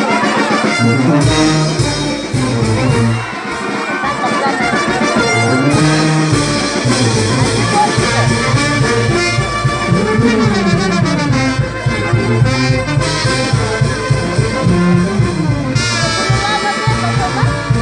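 A brass band playing a festive tune, trumpets carrying the melody over a steady low beat.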